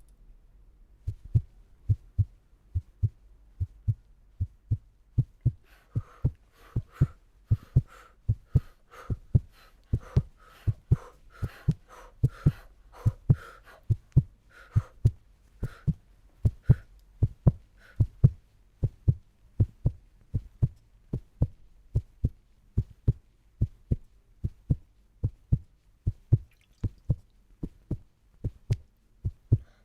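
Heartbeat sound effect, likely foley: steady paired lub-dub thumps at about one beat a second. From about six to eighteen seconds in, a brighter, higher layer sounds with each beat.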